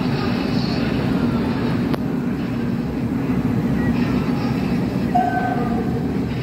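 Steady low rumble with faint voices.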